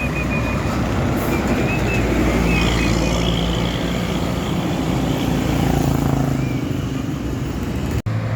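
Road traffic with buses and other heavy vehicles driving past, engines running in a steady dense rumble. The sound cuts out for an instant near the end.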